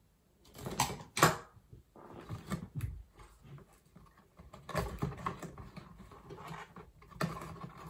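Hands opening a cardboard box and handling its packaging: irregular rustling, scraping and knocks, the sharpest about a second in.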